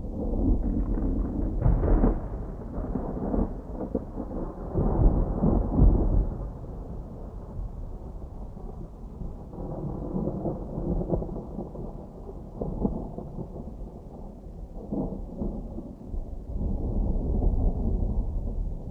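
Distant thunder rumbling low and rolling, swelling loudest about two and five seconds in and again near the end.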